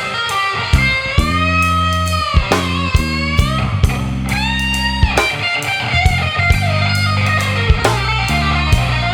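Slow blues electric guitar solo, with long held notes bent up and released, over a bass line and a steady drum beat.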